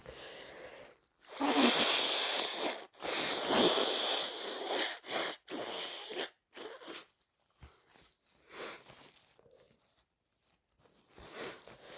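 A person with a heavy cold sneezing and blowing their nose: two long, loud noisy blasts, one about a second in and one about three seconds in, then several shorter ones, dying away to quiet before a new one starts near the end.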